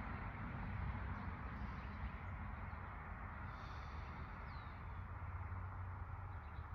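Outdoor neighbourhood soundscape: a low rumble of road traffic slowly fading, with a few faint bird chirps about halfway through.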